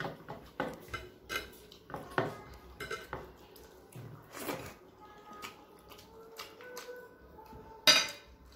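Eating rice by hand from plates: fingers and bangles clicking and scraping against the plates, with one loud, sharp clink about eight seconds in.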